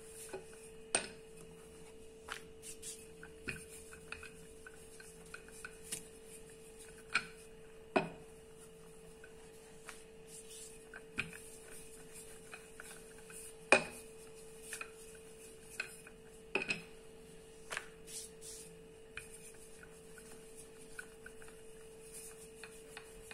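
Wooden rolling pin rolling roti dough on a stone countertop: a soft rubbing broken by scattered light knocks and clicks where the pin meets the hard counter, every second or two.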